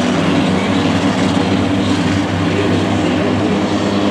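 Several race car engines running together in a steady, loud drone, with no single engine standing out.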